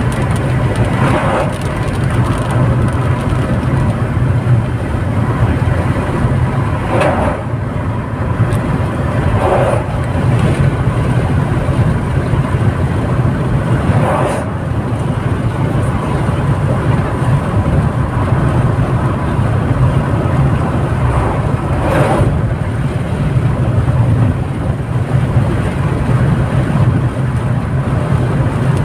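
Steady engine and tyre noise heard inside a car cruising on a highway, with several brief rushes as oncoming trucks pass.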